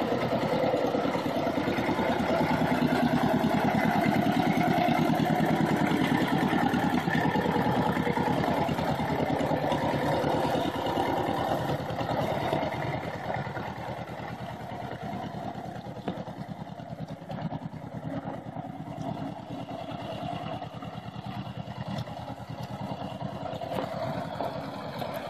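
John Deere Model L Industrial tractor's small two-cylinder engine running steadily as the tractor drives off, growing quieter about halfway through as it moves away. It is firing well on a newly replaced magneto condenser, and the owner judges its timing good.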